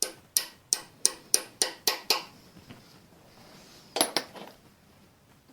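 Sharp metallic taps, about eight in quick succession over two seconds, then a brief rattle of clinks, from metal striking metal on the engine block.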